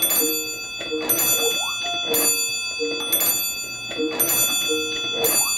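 The twin nickel ringer bells of a circa-1907 Montgomery Ward Diamond Bridging hand-crank wall telephone ringing for an incoming call. The bells strike in repeated bursts about a second apart and keep ringing between them, over a repeating pattern of lower tones.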